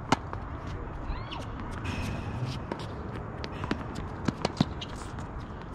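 A tennis racket hits the ball on a serve with a sharp pop just at the start. Scattered pops of ball strikes and bounces on the hard court follow, including a quick run of three near the end.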